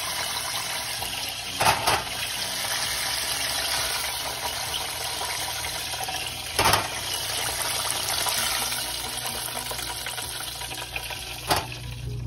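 Battered chicken drumsticks deep-frying in a pot of hot oil: a steady sizzling hiss. Three sharp metal clacks a few seconds apart as tongs lift the pieces out onto a wire rack.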